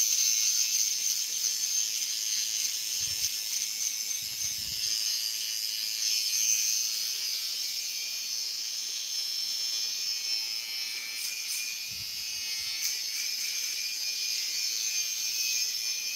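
Electric hair clipper running during a haircut: a steady, high, hissing buzz that runs without a break.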